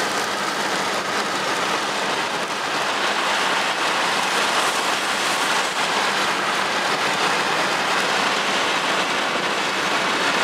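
Steady rush of heavy thunderstorm rain and wind heard from inside a car, with no distinct hits or breaks.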